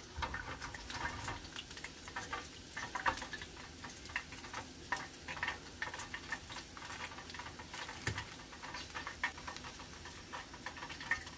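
Fish frying in hot oil: a steady sizzle with irregular crackles and pops.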